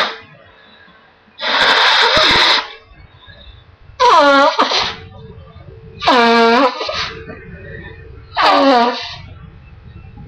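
A person blowing their nose forcefully four times, about two seconds apart. The first blow is breathy and the last three honk with a pitched tone. A faint steady hum runs underneath.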